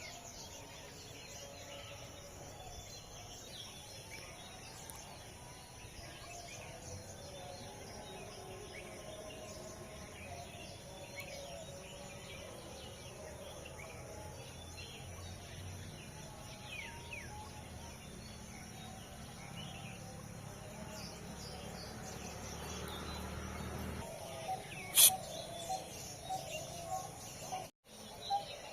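Outdoor background noise with faint, scattered bird chirps. A single sharp click about 25 seconds in is the loudest sound, followed near the end by a run of short, evenly repeated calls.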